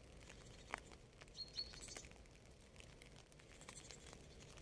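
Faint light rain: scattered drops pattering and ticking. About a second and a half in, a bird gives two short high chirps.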